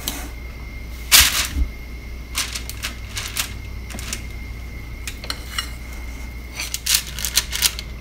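Metal fork and spoon clinking against each other and tapping the mixing bowl as soft scone dough is scooped out and dropped in lumps onto a baking sheet: irregular clicks and taps, loudest about a second in and bunched again near the end. A steady low hum runs underneath.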